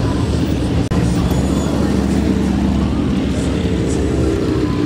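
Sport motorcycle engines running at low revs as the bikes roll slowly by, with a low, steady rumble that shifts up in pitch a little about three seconds in.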